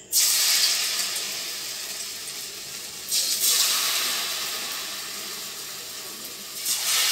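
Batter-coated potato pieces dropped one at a time into very hot deep-frying oil, each setting off a sudden burst of sizzling that slowly dies down: three drops, about three seconds apart.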